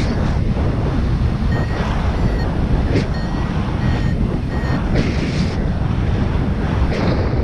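Wind rushing over the camera microphone in paraglider flight. A variometer gives short repeated high beeps for a few seconds in the middle, the tone it gives when the glider is rising in lift.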